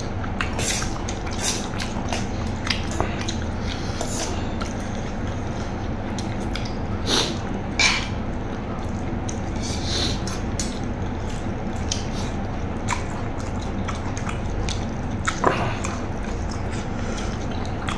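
Close-up mouth noises of a person eating: scattered wet smacks and clicks from chewing, a few seconds apart, over a steady background hum.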